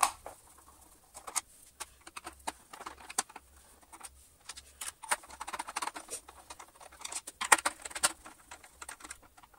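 Screwdriver backing small screws out of a Dyson DC33's plastic motor housing: irregular small clicks, ticks and scrapes of metal on plastic as the screws turn and the parts are handled, with a sharper clack about seven and a half seconds in.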